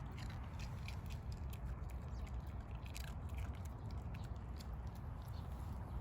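Small Pomeranian dog chewing a treat: faint, irregular crunching clicks over a low steady background hum.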